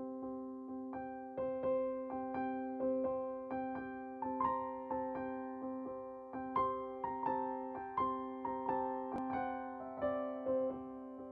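Background keyboard music in a soft piano tone: single notes struck about twice a second and fading, over held low notes.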